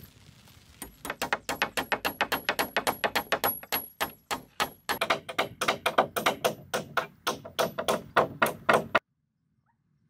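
A rapid series of sharp strikes, about four to five a second, like a blade or tool hitting wood over and over. It starts about a second in, pauses briefly near the middle, and cuts off suddenly about nine seconds in.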